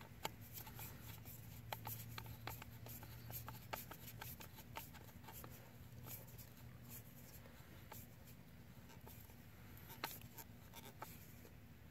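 A nut driver turning the screw of a worm-gear hose clamp, tightening a vacuum hose onto a sump pump's outlet: faint, irregular clicks and scratches as the screw works along the band, bunched in the first few seconds and again near the end.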